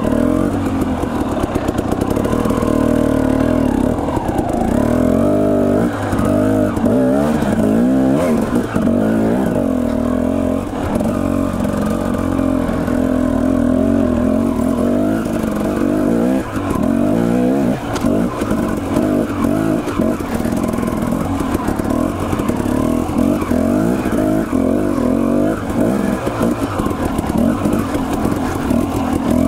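Dirt bike engine running through continual throttle changes, its pitch rising and falling as it climbs and rolls along rocky singletrack.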